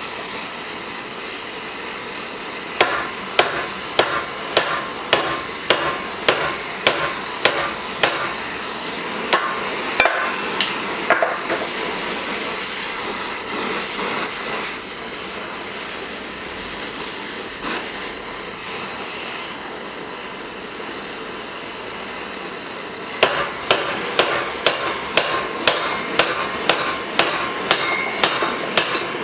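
Hammer blows on metal, about two a second, each with a short metallic ring: a run of about a dozen and a half strikes, a pause of about ten seconds, then a second run. A steady rushing noise runs underneath throughout.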